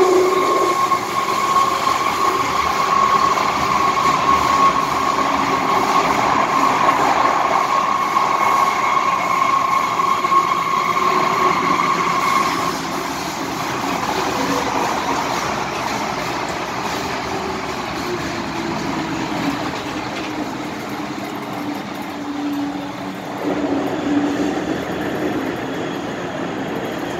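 MTR M-Train electric multiple unit running in a tunnel, heard from inside the car: steady rumble with a high motor whine that cuts off about halfway through. After that a lower tone slowly falls in pitch.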